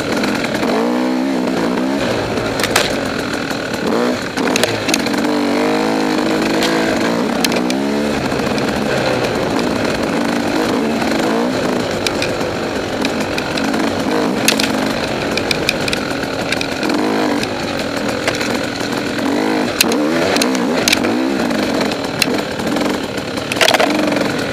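Two-stroke single-cylinder engine of a KTM 300 XC dirt bike on the trail, revving up and down repeatedly as the rider works the throttle, with scattered sharp knocks throughout.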